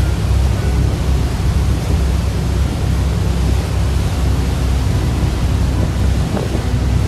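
Wind buffeting the microphone on a ferry's open deck, over the steady low rumble of the ship's engines and its churning wake.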